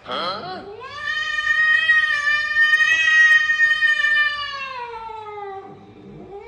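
A pet's long, drawn-out yowl: a short cry first, then one call held for about five seconds that sinks in pitch near the end, and another short cry at the close.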